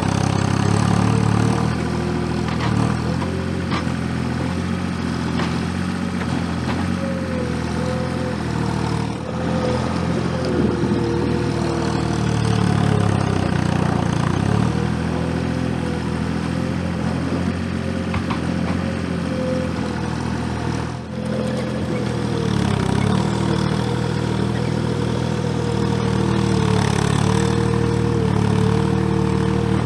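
Gehl 4835 SXT skid steer's engine running at working speed while pushing snow, with a whine that sags in pitch several times as the machine loads up and then recovers.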